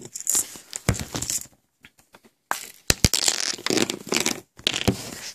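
Hard plastic Lego boulder element being pried open in the hands, with sharp plastic clicks and rustling, scraping handling noise as small pieces come loose.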